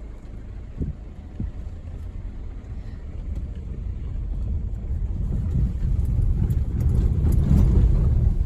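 Jeep Renegade driving on an unpaved dirt track: a low rumble of engine and tyres that grows steadily louder, with two short knocks about a second in.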